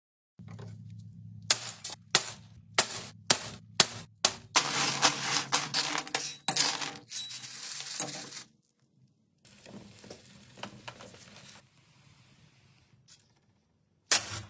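Sharp metallic clicks and knocks, about seven of them, over a low steady hum. They run into a few seconds of dense clinking and clatter, then go quiet, with one more short burst near the end.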